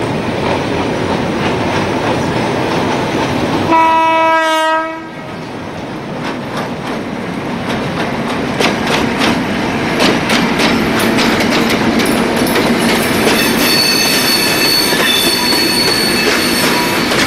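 Diesel-hauled passenger train passing close by, wheels clattering over the rail joints, with one horn blast of about a second roughly four seconds in. High-pitched wheel squeal comes in near the end.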